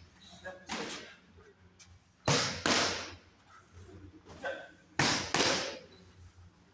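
Boxing gloves smacking into focus mitts. There is a lighter hit about a second in, then two quick pairs of sharp smacks, each pair under half a second apart, ringing briefly in a large hall.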